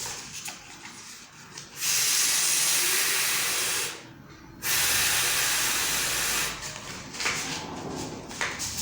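A woman voicing the phonic sound of the letter F: a long, voiceless "fffff" hiss held for about two seconds, made twice with a short break between.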